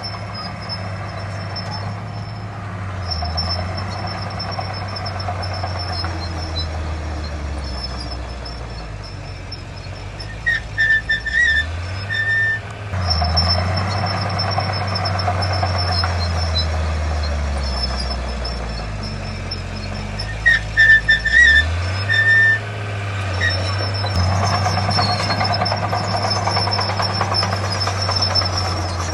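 Heavy diesel earthmoving machinery working, its engine note dropping and picking up again twice, with a steady high whine over it. A short run of high, clipped beeps from a reversing alarm comes in at each of those shifts.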